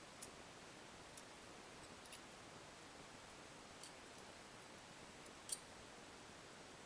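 Near silence with a few faint, sharp clicks of small parts handled: the power distribution board and its screws knocking lightly as they are fitted together. The loudest click comes about five and a half seconds in.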